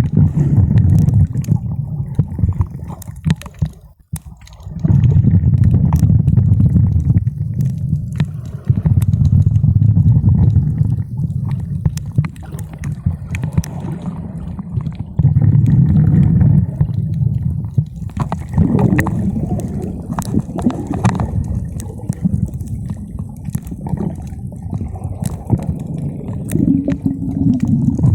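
Muffled sea water heard underwater: a low rumbling wash that swells and eases every few seconds, with scattered faint clicks.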